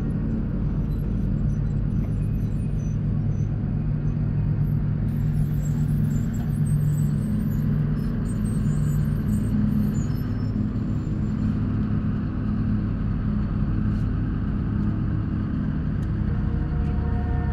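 A steady low rumble with a deep droning hum.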